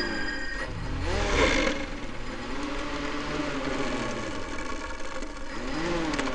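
Motor whine of a small remote-controlled flying model, played back at a fifth of normal speed, so it sounds low and drawn out. Its pitch rises and falls slowly, most clearly about a second in and again near the end.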